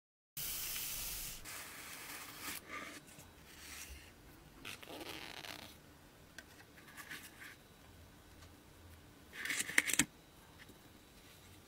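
Cardboard, paper and foam packaging of a model engine kit being handled, rubbing and scraping with a few light clicks. A louder scrape with a couple of sharp clicks comes about nine and a half seconds in.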